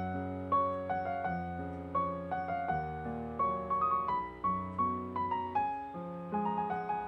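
Background piano music: a gentle melody of struck notes and chords, each note fading after it is played.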